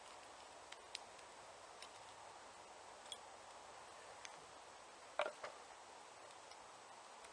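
Scattered light clicks and taps over a faint steady hiss, the loudest a quick pair about five seconds in.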